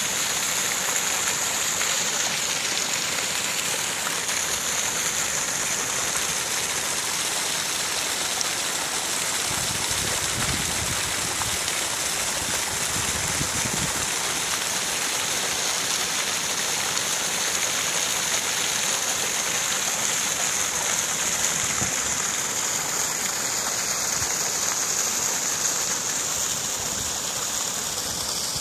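Small waterfall: creek water spilling steadily over a long low rock ledge in several short cascades, a continuous rushing splash.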